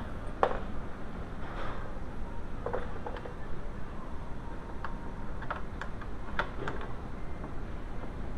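Scattered light clicks and taps, about nine at uneven intervals, of hand tools and metal parts being handled while working on a car door lock, over a steady low background hum.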